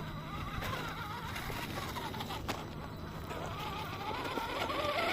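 Electric motor and gearbox of a 1/10-scale RC rock crawler whining as it crawls slowly over rocks, the pitch wavering up and down with the throttle and getting louder near the end.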